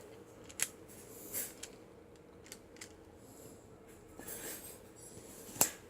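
Capri self-adjusting wire stripper cutting through four-conductor phone cable: a handful of faint scattered clicks and snips, the loudest just before the end.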